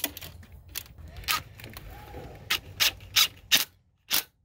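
A metal nut being hand-threaded onto the power-cable terminal stud of a starter solenoid, with light rubbing and scraping of metal on metal. After about two and a half seconds come several short, sharp clicks as a socket tool is fitted and worked on the nut.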